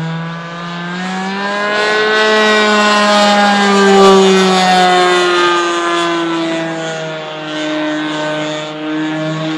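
Model airplane motor droning overhead. Its pitch rises, peaks as the plane passes about four seconds in, then falls away.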